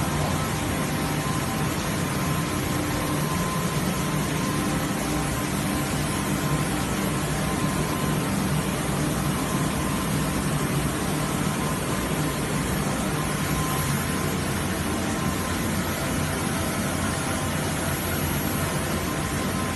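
Polypropylene melt-blown filter cartridge production line running: a steady machine drone and hiss with a thin, even whine above it.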